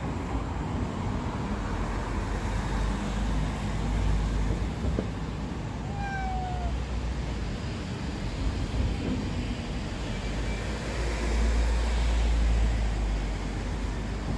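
Steady low outdoor rumble, with a cat giving one short, slightly falling meow about six seconds in.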